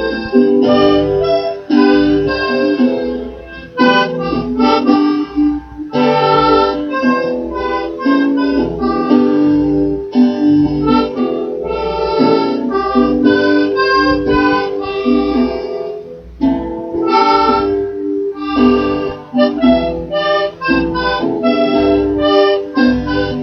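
Instrumental music from a live band: held chords that change every second or so over a steady low pulse, with no singing.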